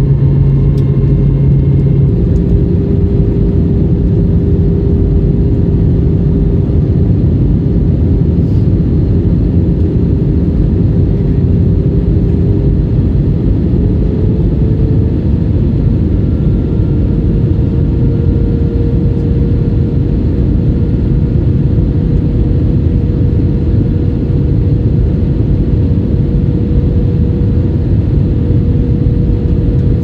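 Jet airliner cabin noise in flight on approach: a steady rumble of engines and airflow. A faint engine tone within it rises slightly about halfway through and then holds.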